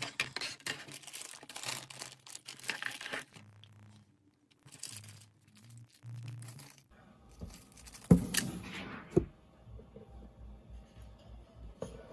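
Clear plastic bags of small hardware crinkling and rustling in hands, with thin plywood kit pieces being moved about on a table. About eight seconds in there is a louder rustle and a knock, and another knock a second later.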